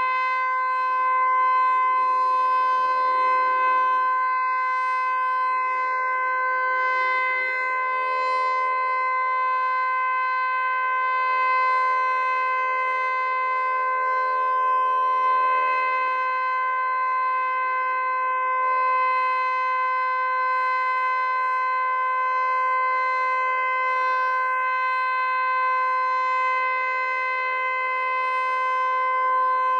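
Federal Signal Eclipse 9 electronic outdoor warning siren with fixed, non-rotating horns, sounding its full-alert signal: one loud, steady tone held at a constant pitch, with only slight slow swells in loudness.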